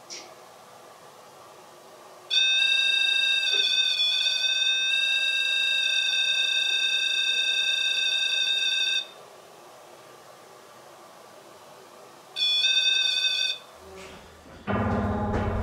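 A steady, high electronic alarm tone rich in overtones sounds for about six and a half seconds, stops, then sounds again briefly for about a second. Music starts near the end.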